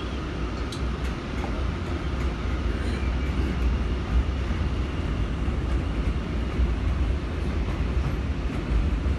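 Interior of an R179 subway car in motion: a steady low rumble of wheels on rail, with a faint steady whine above it and a few light ticks.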